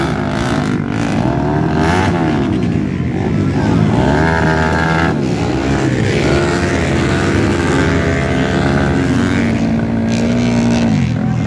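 Four-stroke 250cc motocross bike engines revving up and down, several overlapping, with one held higher for a stretch about eight to ten seconds in. Among them is a bike bogged in deep mud being revved while it is pushed free.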